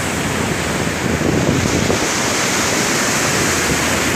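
Sea surf breaking and washing up a sandy beach: a steady rush of foaming water that grows louder about a second in.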